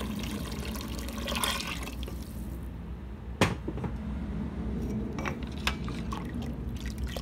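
Water pouring into a pot of simmering tomato broth, stopping about two and a half seconds in. A ladle then knocks once sharply against the pot, with a few lighter knocks as it stirs.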